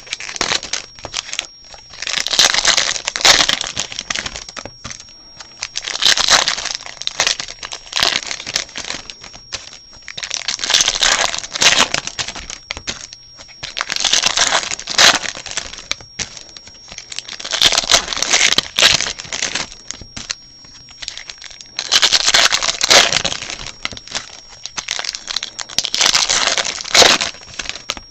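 Foil wrappers of trading-card packs crinkling and tearing as packs are opened one after another, in bursts about every four seconds.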